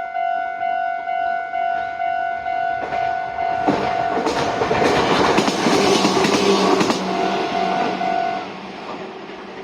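A Japanese level-crossing alarm rings in a steady repeating ding, about two a second, as a Meitetsu Bisai Line train passes over the crossing. From about three seconds in, the train's rumble and the clicks of its wheels over rail joints build up and are loudest in the middle. The alarm stops about eight seconds in as the train clears, and the train sound fades.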